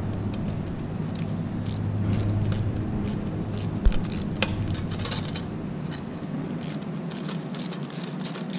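Light metallic clicks and scrapes of a screw being turned by hand into a clip-on nut plate on thin aluminium sheet, with one sharper click about four seconds in. A low steady hum sits underneath and drops away after about six and a half seconds.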